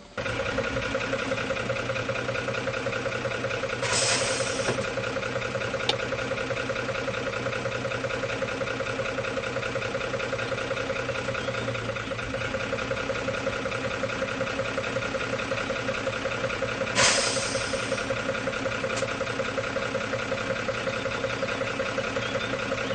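Unic 75 PC 4x4 fire truck's engine idling steadily, with a brief hiss twice, about 4 seconds in and again about 17 seconds in.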